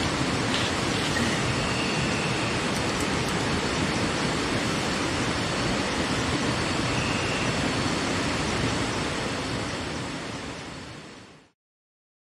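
Steady rushing of river water, an even noise, with a few faint short high chirps over it; it fades out about ten seconds in.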